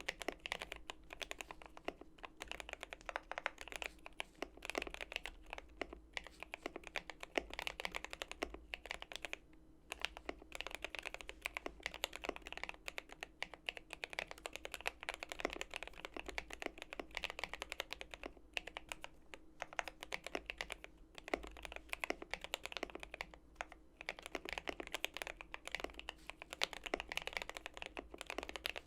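Fast continuous typing on a GMMK Pro mechanical keyboard with lubed and filmed JWK Durock HaluHalo linear switches on a polycarbonate plate: a steady stream of smooth, clacky keystrokes, pausing briefly twice.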